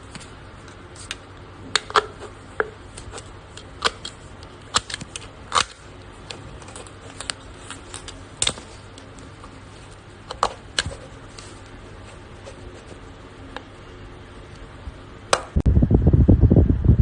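Light, irregular clicks and taps of small hard objects being handled, over a steady low hum. Near the end a loud, low rumbling noise sets in.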